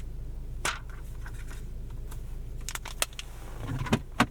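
Protective plastic film being peeled off, crackling and rustling with a few sharp clicks, the loudest near the end, over a steady low hum in the car.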